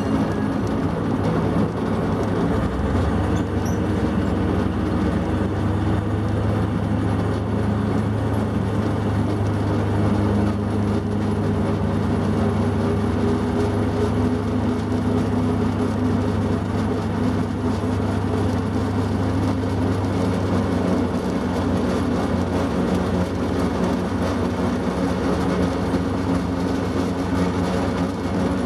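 Plymouth switcher locomotive's engine running steadily as the train rolls slowly along the track, with a low hum whose pitch rises a little about ten seconds in.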